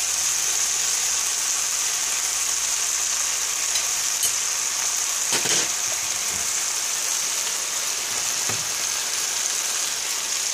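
BBQ-sauced pork fillet steaks sizzling steadily in a nonstick frying pan, with a couple of faint knocks.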